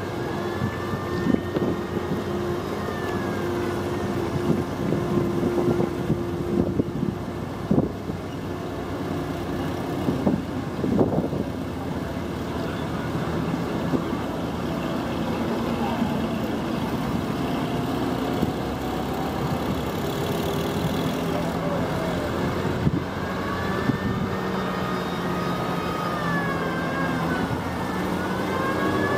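Old army vehicles, an ambulance truck and jeeps, driving past one after another, their engines giving a continuous hum. High rising-and-falling wails sound near the start and again in the last few seconds.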